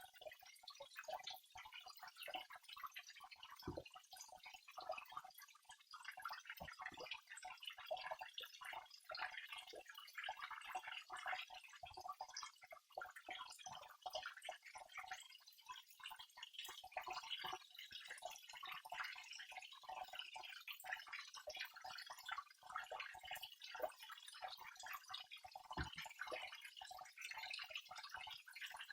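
Small waterfall: water splashing and trickling without pause, a dense, fine patter of drops, faint.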